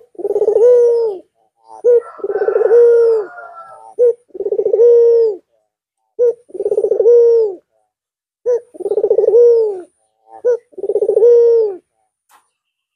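Albino puter (Barbary dove) cooing in a repeated two-part call: a short note, then a longer rolling coo that falls at its end. The call comes six times, about two seconds apart.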